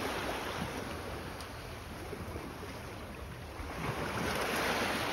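Steady rush of sea surf and wind buffeting the microphone, swelling about four seconds in.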